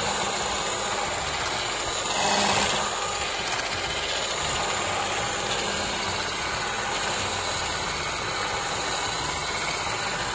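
Electric hand mixer running steadily, its beaters whipping cream and strawberry purée in a bowl to thicken it; briefly louder about two seconds in.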